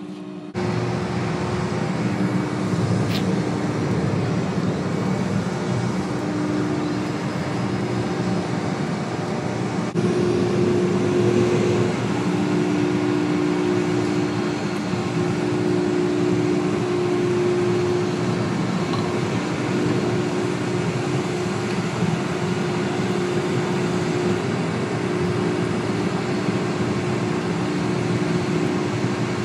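Ship's deck crane and clamshell grab machinery running under test after the grab's piston rod was replaced: a steady mechanical drone with a low hum that steps between two close pitches, a little louder from about ten seconds in.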